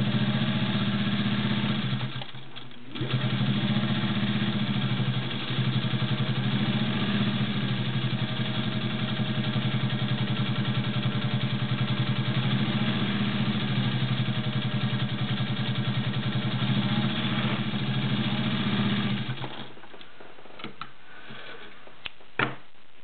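Singer 201-2 sewing machine's potted, direct-drive motor running steadily while stitching through 16 layers of cotton. It stops briefly about two seconds in, then runs on until a few seconds before the end, when it falls quiet and a few light clicks follow.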